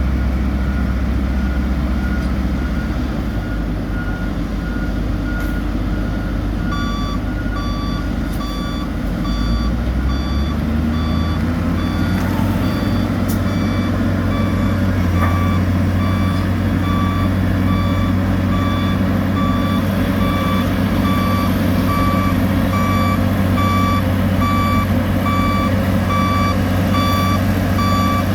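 Diesel engines of heavy paving machinery running with reversing alarms beeping, about two beeps a second. A second, louder alarm joins about a quarter of the way in, and the engine note rises a little around the middle.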